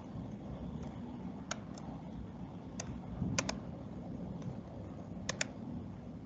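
Sharp, scattered clicks of a computer mouse and keys being worked, about seven in all, two of them in quick pairs, over a low steady background hum.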